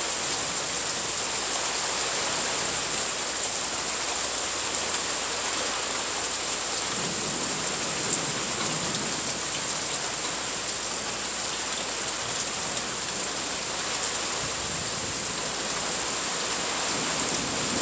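Steady rain falling during a thunderstorm: an even, unbroken hiss.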